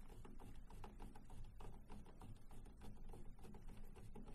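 Faint, irregular small clicks and ticks of a screwdriver turning a screw into the ink tube connector on an HP Designjet printer carriage, snugged up rather than tightened hard.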